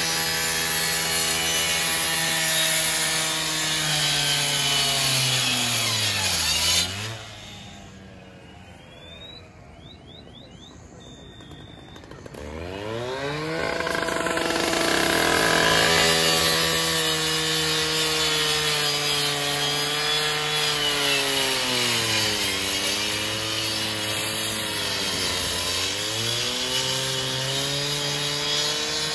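Two-stroke rotary saw cutting into the sheet metal at the front of a burning car, its engine note sagging as the blade bites. About seven seconds in it falls away to a low idle, revs back up about five seconds later and cuts on, bogging down twice near the end.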